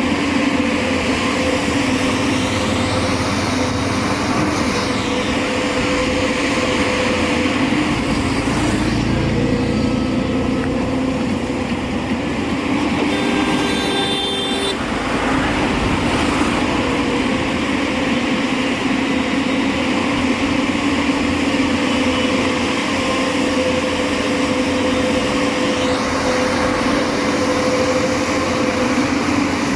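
JCB 3DX backhoe loader's diesel engine running steadily under load while it digs, a continuous loud drone.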